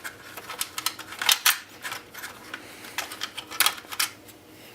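Irregular small clicks, taps and rattles of plastic and metal printer parts being worked loose by hand while the main circuit board is removed.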